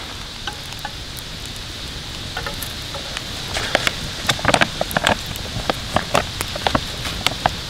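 Wood campfire crackling with sharp, irregular pops over a steady hiss; the pops come thicker from about halfway through.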